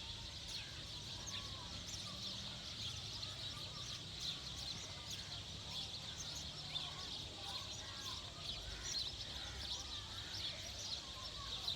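Many birds chirping and calling at once, a dense, steady high-pitched chatter with occasional lower calls.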